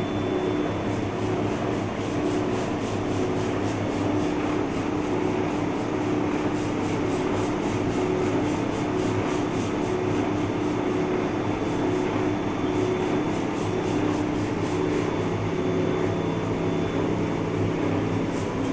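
Large Cincinnati Milacron engine lathe running, a steady mechanical hum with a held gear whine and a fast, even ticking over it.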